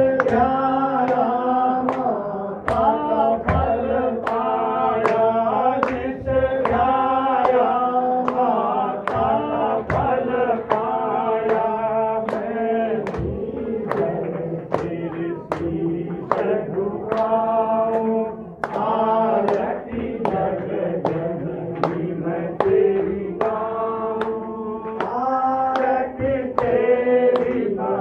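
Devotional singing of an aarti, voices carrying a melody over a steady held tone. Sharp percussive strokes keep a beat of about two a second.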